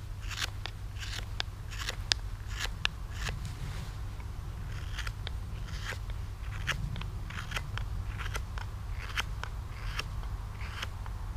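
Spoon scorp paring thin shavings from the inside of a dried willow spoon bowl: a quick series of short, crisp, crunchy slicing strokes, about two a second, some with a sharp click.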